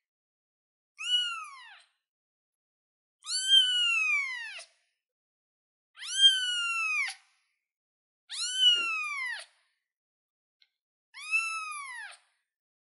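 Young kitten meowing: five separate high meows about two to three seconds apart, each rising and then falling in pitch.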